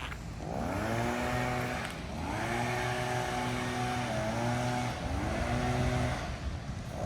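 An engine revved up again and again: each time its pitch climbs quickly and holds steady for a second or two, then drops back before the next rev, about every two to three seconds.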